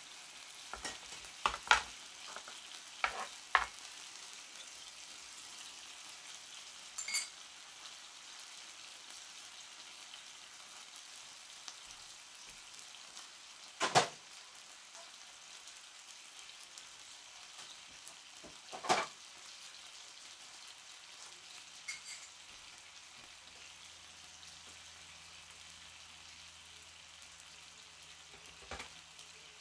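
Marinated pork belly slices sizzling steadily in a skillet on a portable gas stove. Sharp knocks cut through the sizzle: a quick cluster in the first few seconds as a knife chops on a plastic cutting board, then a few louder single knocks later on.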